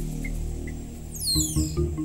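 Tense background music: a sustained low drone, joined about halfway through by a pulsing low beat and high notes stepping down in pitch.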